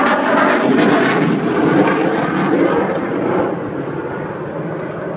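Jet noise from an RAF Eurofighter Typhoon's twin EJ200 engines as it flies past, loudest in the first couple of seconds and then slowly fading.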